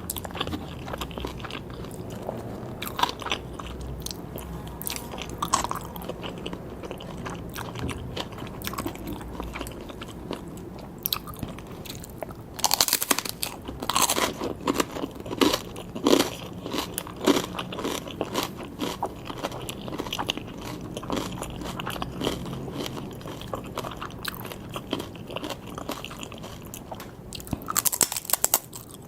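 Close-miked eating sounds: a person biting and chewing sushi, with crisp crunches that come thickest about halfway through and again near the end.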